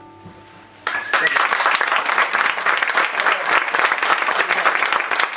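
The last strummed chord of a song on an acoustic guitar rings out and fades. About a second in, an audience breaks into applause and keeps clapping.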